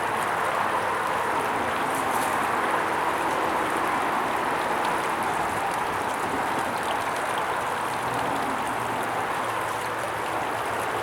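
A small stream running steadily: an even, unbroken rush of water.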